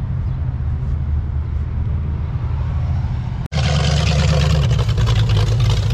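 A steady low rumble, then, after a sudden cut about three and a half seconds in, a louder sound: a hot rod's engine running as it drives past on the street.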